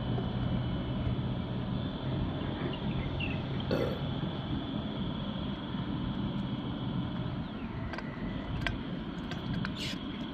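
Steady low drone of a large container ship under way at slow speed, with a few short clicks and knocks around it, one about four seconds in and several near the end.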